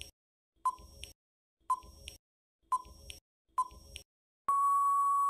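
Quiz countdown timer sound effect: short beeps about once a second, then one longer steady beep near the end as time runs out.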